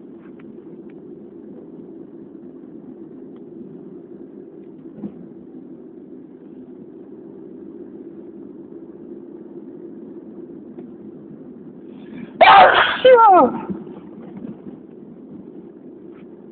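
A person sneezing loudly once, about twelve seconds in, with a voiced cry that falls in pitch at the end. A steady low background noise lies under it.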